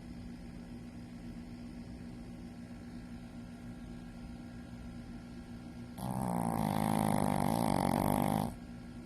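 Shih Tzu snoring: one loud snore about six seconds in, lasting about two and a half seconds and cutting off suddenly, over a faint steady hum.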